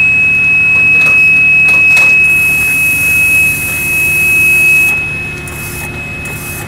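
A steady, high-pitched electronic buzzer tone sounds without a break over a low hum, with a couple of light knocks about one and two seconds in.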